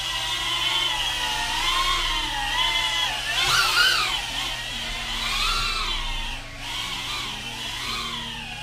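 KingKong/LDARC Tiny GT8 brushless FPV whoop drone in flight, its motors and propellers whining and rising and falling in pitch with the throttle. It is loudest about four seconds in and drops off briefly a little past six seconds.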